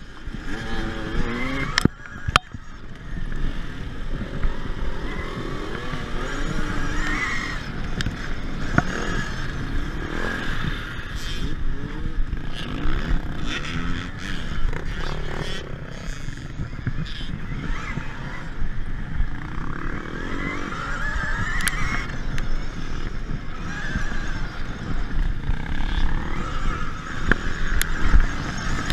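Dirtbikes racing in a close pack, their engines revving up and down in pitch, over heavy wind rumble on the microphone, with a couple of sharp knocks about two seconds in.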